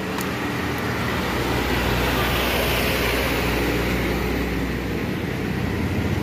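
A road vehicle passing close by: a rumbling noise that swells to its loudest about two to three seconds in, then eases off.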